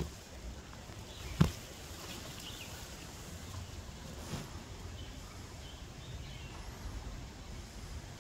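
Outdoor forest ambience: a steady low rumble with faint, scattered bird chirps, and one sharp knock about a second and a half in.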